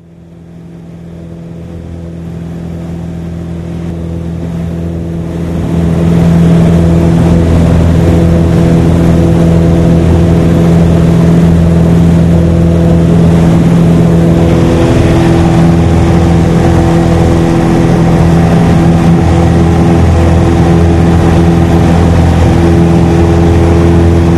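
Steady drone of a light aircraft's piston engine and propeller, heard from inside the cabin. It fades in over the first several seconds, then holds level.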